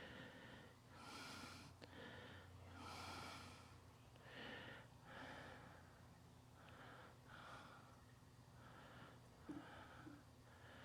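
Very faint sound: a person breathing close to the microphone, a soft breath every second or so, over a low steady hum.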